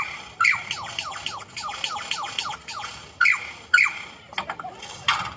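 Superb lyrebird mimicking laser-gun 'pew pew' sounds: a rapid run of quick falling whistled notes, broken by a few louder, sharper notes.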